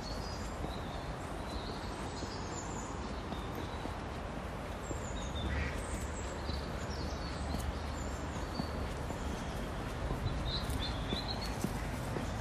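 Small birds chirping in short high calls, scattered throughout and thickest near the end, over a steady background of outdoor noise with a low rumble.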